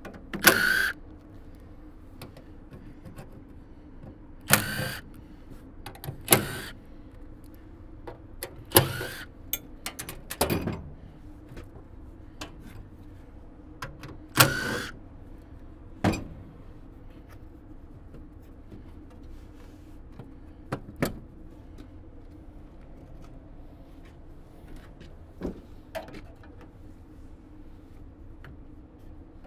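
Cordless impact driver running in about nine short bursts a few seconds apart, fewer toward the end, backing out screws on the sheet-metal furnace cabinet.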